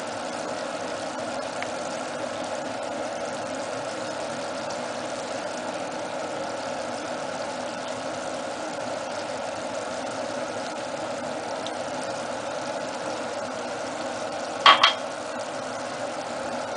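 Steady machine hum, even in level throughout, with two quick sharp clinks close together near the end.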